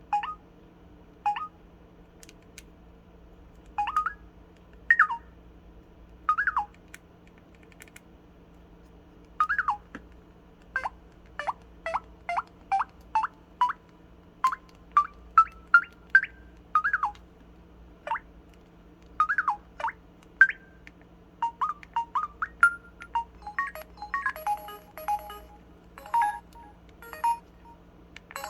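Samsung SPH-W8300 'Magic Hole' phone playing its button sound effects: short electronic chirps, many sliding up or down in pitch, at irregular intervals and coming faster and closer together in the last several seconds, over a faint steady hum.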